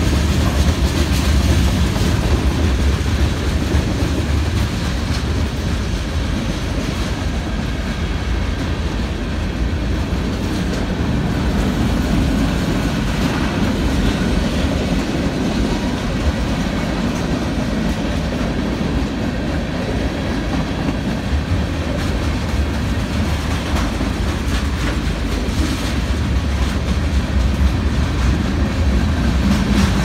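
Freight cars (tank cars and covered hoppers) of a manifest train rolling past close by: a steady rumble of steel wheels on the rails.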